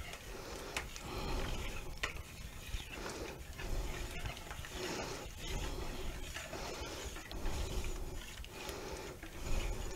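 Wire whisk stirring flour into a runny dough in a mixing bowl, in repeated uneven scraping strokes.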